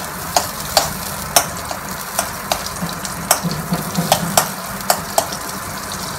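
Butter melting in hot oil sizzles in a stainless steel kadai while a steel spoon stirs it, clicking and scraping against the pan about twice a second.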